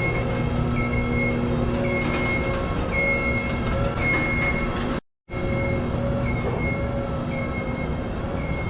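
Powered lift driving along, its drive running with a steady rumble and hum while its travel alarm gives a short high beep about once a second. The sound cuts out briefly about five seconds in, then carries on.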